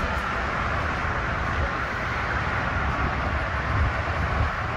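Steady outdoor background noise: a low rumble with hiss and a faint high steady tone, and no distinct event.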